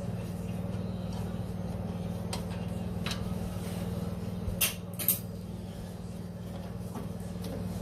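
A steady low mechanical hum, with two sharp metallic clinks about half a second apart around the middle.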